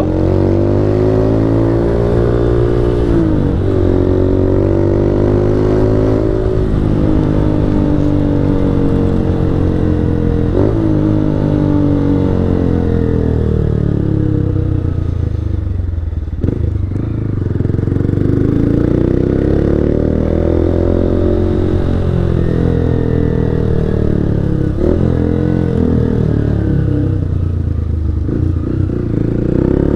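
160 cc motorcycle engine under way, its pitch climbing and dropping back at each of several gear changes. It falls away as the bike slows about halfway through, then builds again as it picks up speed.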